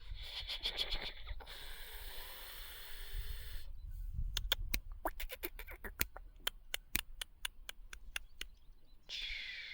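Black francolin making soft rasping notes, one at the start and one near the end, with faint scattered clicks and scratching in between.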